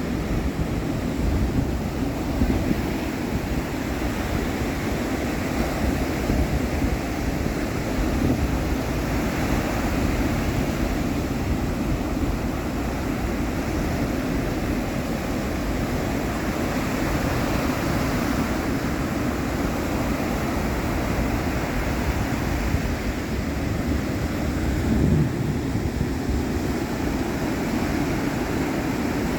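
Ocean waves breaking and washing on the shore, swelling and easing every several seconds, with wind rumbling on the microphone.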